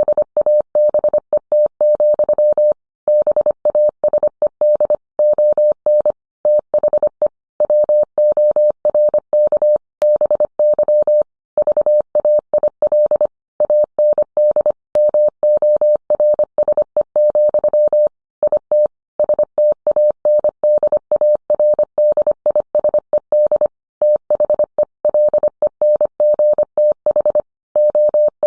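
Morse code sent as a single steady mid-pitched audio tone, keyed on and off in rapid dits and dahs, with short pauses between groups.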